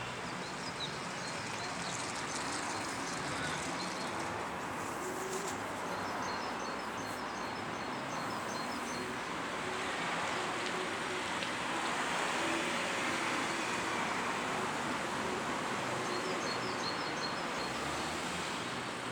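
Steady background noise with small birds chirping faintly, in short runs during the first few seconds and again near the end.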